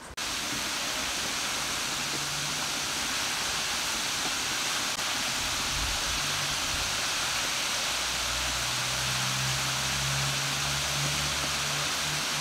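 Chicken pieces deep-frying in a pan of hot oil: a steady, loud sizzle. A low hum sits underneath, stronger in the second half.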